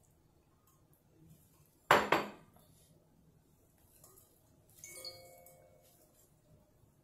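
Kitchen bowls clattering against a stainless steel mixing bowl: a sharp double clank about two seconds in, then a glass bowl clinks on the steel bowl's rim and rings briefly about three seconds later.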